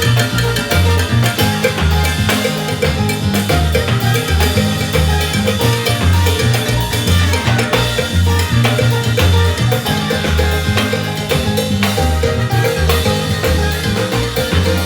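Salsa band playing, with a repeating bass line under dense drums and percussion.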